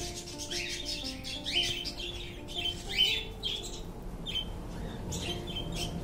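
Short rising bird chirps repeating about once a second, over soft background music with long held notes.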